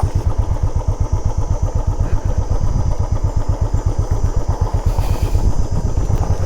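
Motorcycle engine running at low revs with an even, rapid pulse as the bike creeps slowly down a rough, slippery trail.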